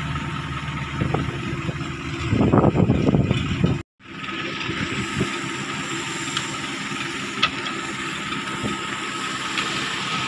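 Diesel engines of a Cat mini excavator and a concrete mixer truck running steadily. About two seconds in, a louder rough rush as a bucket of sand is tipped into the mixer's hopper. The sound breaks off suddenly just before four seconds, then a steady engine hum carries on.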